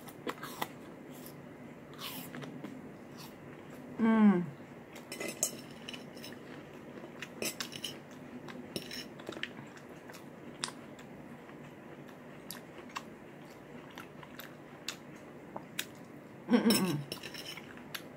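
Someone eating from a plate: a fork clicking and scraping on the plate, with chewing and small mouth sounds. Two short hums with falling pitch come about four seconds in and again near the end.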